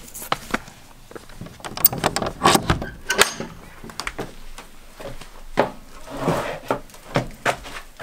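Wooden shed door being unlatched and swung open, followed by a series of wooden knocks and clatters as things are handled inside the shed, loudest between about two and three seconds in.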